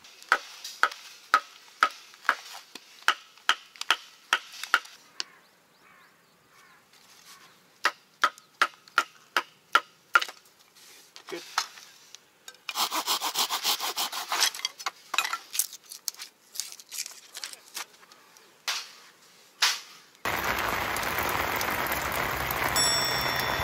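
Bouts of sharp, evenly spaced strikes, about two to three a second, from work on the campsite. About twenty seconds in, steady rain noise takes over.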